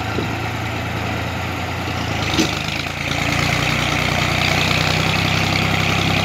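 Tractor engine running steadily while hauling a trailer load of logs. There is a single sharp knock about two and a half seconds in, and the engine gets louder from about three seconds in.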